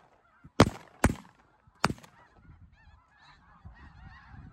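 Three shotgun shots in the first two seconds, then a flock of snow geese calling overhead as a faint, continuous chorus of many overlapping calls.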